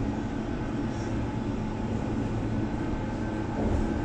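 London Underground District Line train running, heard from inside the carriage: a steady rumble of wheels on the rails with a faint hum.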